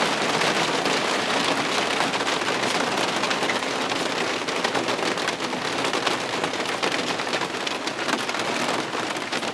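Heavy rain falling steadily, a dense hiss of drops on hard surfaces, as a downpour picks back up.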